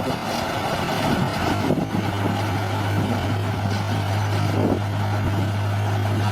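Heavy diesel engine of a bulldozer running at a steady speed, a constant low hum with some rougher, uneven noise over it.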